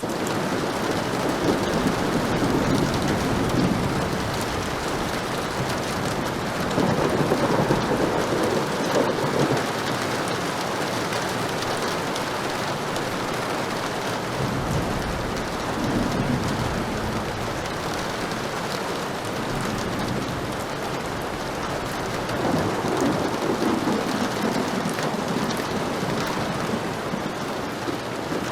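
Heavy rain falling steadily, with low rolls of thunder swelling and fading several times.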